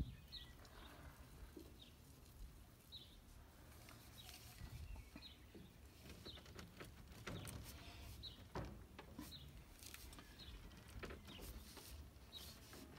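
Near silence, with a small bird's short chirps every second or two and a few faint knocks and rubs as a black ABS elbow is handled and pushed onto a PVC pipe.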